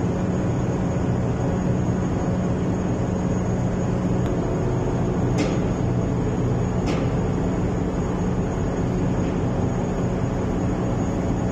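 A tugboat's engines and machinery running with a steady low drone, heard out on the deck. Two faint, brief high-pitched sounds come about halfway through.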